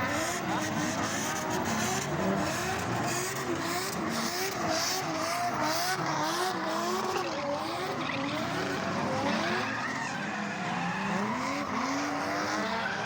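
Drift car engine revving hard on and off the throttle, its pitch swinging up and down about twice a second and then rising more slowly near the end, with tyres skidding and squealing.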